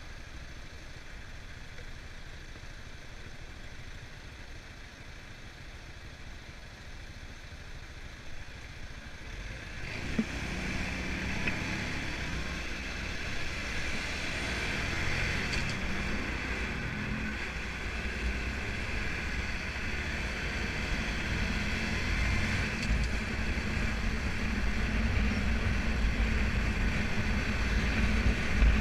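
Motorbike engine idling at a standstill, then pulling away about ten seconds in. Engine and wind noise build steadily as the bike gathers speed.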